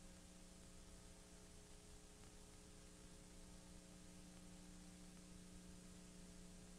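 Near silence: a faint, steady electrical hum over hiss, with no event sounds.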